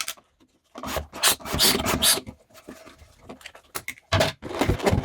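A latex balloon being handled and fitted over the mouth of a bottle, rubbing and rasping in irregular bursts.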